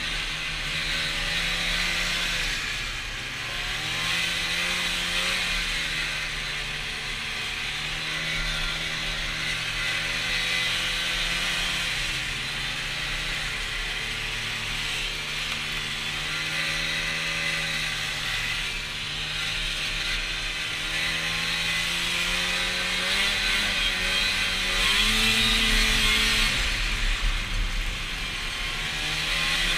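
Polaris Indy Lite 340 snowmobile's two-stroke engine running under way, its pitch rising and falling with the throttle over a steady rushing hiss.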